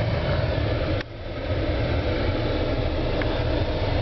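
Mercedes S-Class engine idling under a steady rush of air from the climate-control blower. About a second in there is a sharp click, the rush drops off and builds back up over the next second, part of an HVAC problem that the owner calls annoying.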